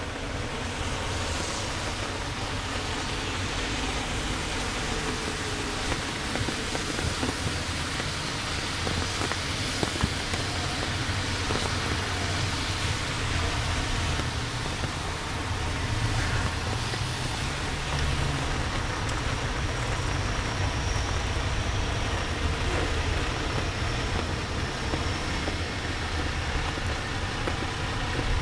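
Road traffic passing steadily on a wet road in heavy rain: a continuous low rumble of cars under an even hiss of rain and wet tyres.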